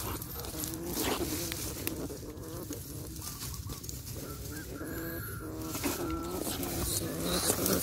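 An animal's short, pitched calls repeating over and over, with the clicks and rattles of wire cage traps being handled.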